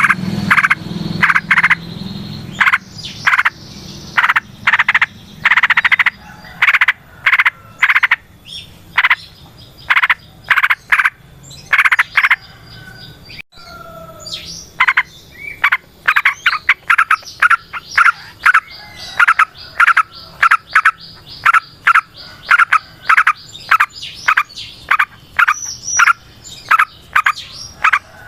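Yellow-vented bulbul (trucukan) calling in a long run of short, rapid chattering notes, two to three a second. There is a brief break about halfway, and then a steady series.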